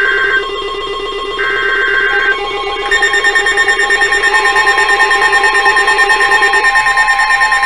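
Emergency Alert System tones from weather radio and broadcast receivers overlapping. Two short bursts of the data-header screech sound over a steady buzzing alert tone, and then about three seconds in a louder steady two-tone attention signal joins and holds with a fast warble.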